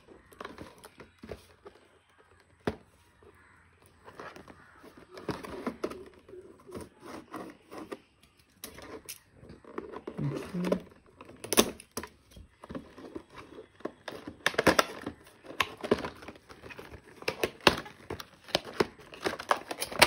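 A cardboard retail box being opened by hand: tape and a sticker peeled off, the flap worked open and a plastic tray drawn out. The sound is irregular tearing, crinkling and scraping with small taps, sparse at first and busier over the second half.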